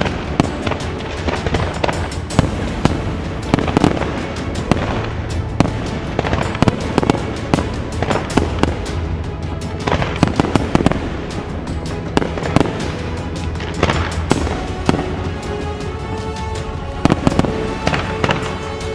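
Fireworks shells bursting overhead, a run of sharp bangs and crackling sparks throughout, over music with held tones toward the end.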